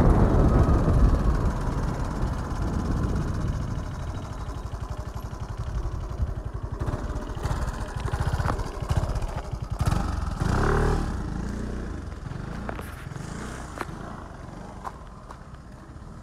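Motorcycle engine running and slowing to a stop, louder at first and fading toward the end, with a short wavering change in engine pitch about ten seconds in.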